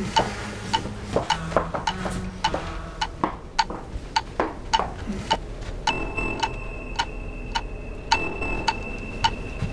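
An even ticking, about three ticks a second, like a clock. A steady high tone joins it about six seconds in.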